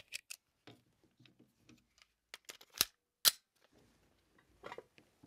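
Small clicks and rattles of a Stoeger STR-9 S Combat 9mm pistol being handled, with two sharper metallic clacks about half a second apart roughly three seconds in.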